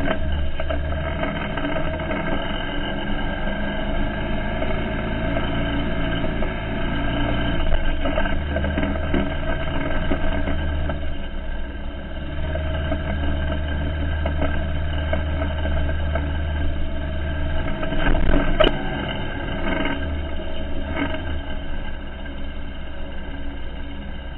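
ATV engine running while the quad rides over rough ground, its note shifting a few times. A sharp knock about three quarters of the way through.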